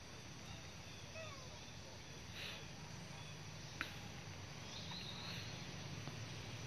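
Quiet forest ambience with a steady low hum, a few faint short chirps and squeaks, and one sharp click a little past the middle.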